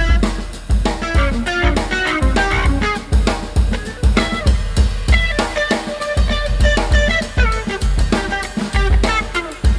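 Background music with a steady drum beat, kick and snare, under melodic plucked notes.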